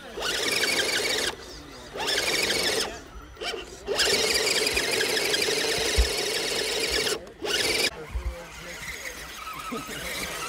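Whine of a 1/10-scale electric RC 4x4 trail truck's motor and gears, coming in on-and-off spurts of throttle. The longest push runs about three seconds through the middle, and the sound drops lower after about eight seconds.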